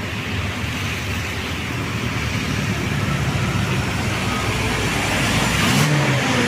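Tour bus engine running as the bus climbs the hill, its noise growing steadily louder as it approaches.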